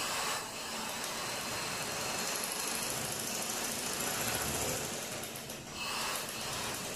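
Motorised domestic sewing machine running steadily as it stitches a seam through cotton-weight fabric, easing off briefly a little under six seconds in before picking up again.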